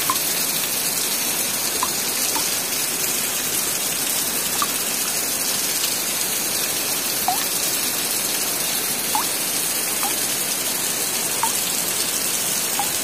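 Steady rain, an even hiss, with short plinking notes every second or so.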